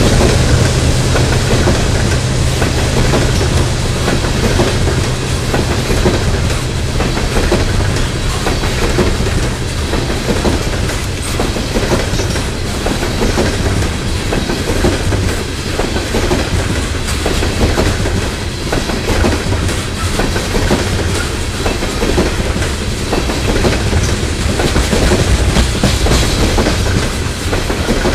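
Loud, steady passing of a CSX coal train's steel hopper cars close by: rumble of steel wheels on the rails, with repeated clicks as the wheels cross rail joints.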